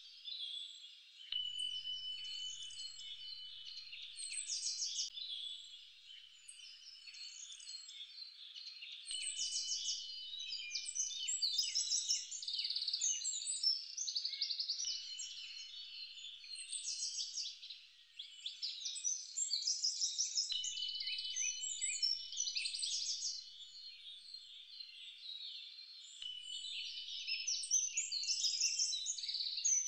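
A chorus of many small birds chirping, their calls overlapping densely throughout. Several times, a high steady note is held for a couple of seconds.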